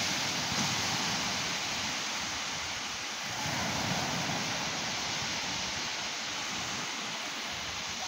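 Ocean surf breaking on a beach: a continuous rush of foaming waves that swells about three and a half seconds in and eases toward the end.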